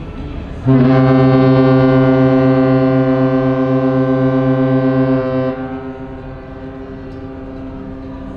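Cruise ship's horn sounding one long, deep, steady blast of about five seconds that stops abruptly; a fainter tone at the same pitch carries on afterwards.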